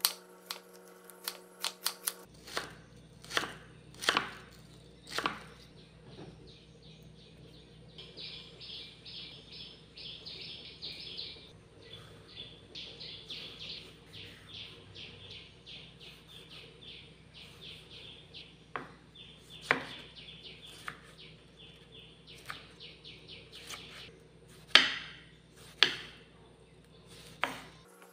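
Kitchen knife chopping spring onions, then cutting tomatoes on a wooden cutting board: sharp knocks of the blade on the board, with runs of fast, even strokes in the middle and slower single cuts toward the end, the loudest of them near the end.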